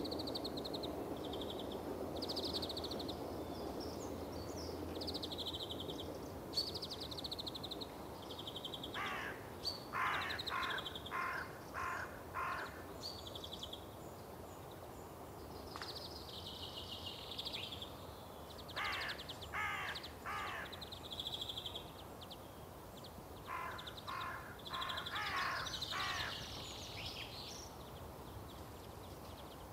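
Recorded birdsong played as filler while the live sound is cut: small birds chirping throughout, with three runs of four or five harsh, crow-like caws.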